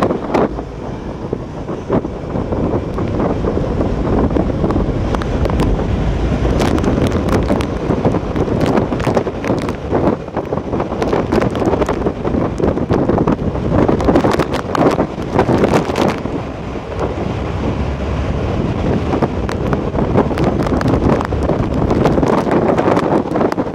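Hurricane wind, sustained around 70 mph with stronger gusts, blasting against the microphone. It comes in uneven surges with frequent sharp crackling hits.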